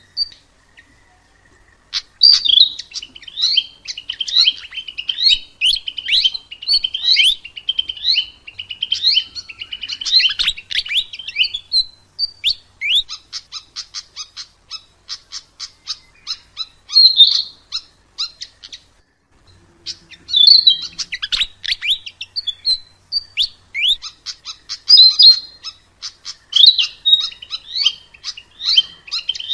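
A sikatan emas (Ficedula flycatcher) sings a fast, varied run of high chirps, slurred whistles and quick rattling trills. The song starts after a moment of quiet, with a long run of evenly spaced rapid ticks through the middle and a brief pause about two-thirds of the way through.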